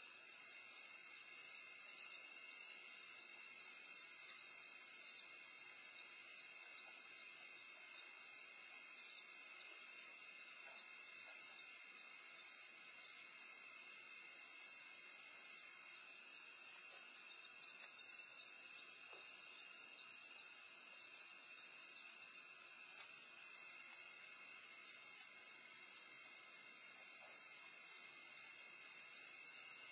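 Steady high-pitched chorus of night insects such as crickets and katydids, several trilling at different pitches without a break.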